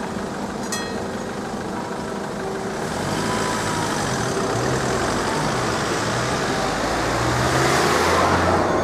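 Level-crossing bell striking about once a second and stopping about a second in. Then the waiting cars pull away across the reopened crossing, their engines revving up one after another, with a car passing close and loudest near the end.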